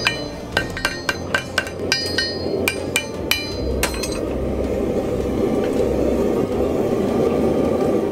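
A hand hammer strikes a red-hot steel horseshoe on an anvil: about a dozen ringing blows, roughly three a second, stopping about four seconds in. A steady rushing noise then takes over.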